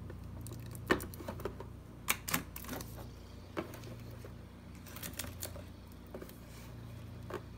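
Cardboard juice boxes being set down and slid into a small plastic mini fridge: a scattered series of light clicks and taps, with the sharpest knocks about a second and two seconds in.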